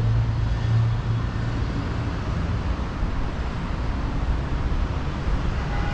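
Steady background noise of distant city road traffic: a constant low rumble with a hiss over it and no distinct events.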